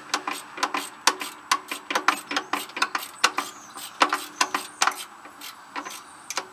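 Hand tools clicking and clinking against metal, a few sharp clicks a second in irregular clusters, as bolts are worked on under a riding mower's engine during its removal.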